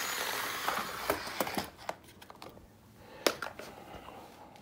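Small electric motors of a basswood robot kit whirring as its wooden spinner bar spins up and it drives across a wooden floor, the whir fading after about a second and a half. Then a few sharp wooden clacks, the loudest about three seconds in.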